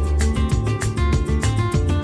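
Background music with a steady beat, bass line and plucked-string parts.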